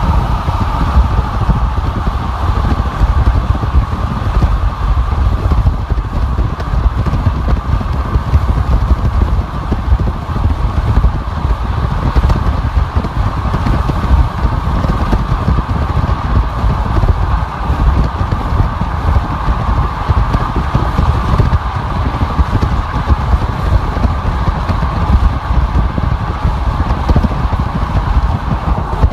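Steady road noise of a car driving on a freeway: a deep continuous rumble with a steady hiss of tyres and wind above it.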